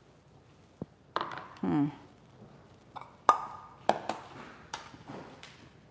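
Ceramic bowls and serving utensils clinking and knocking against each other and the stone countertop as soup is dished out: a handful of sharp clinks, some with a short ring, starting about a second in, with the loudest around three seconds in.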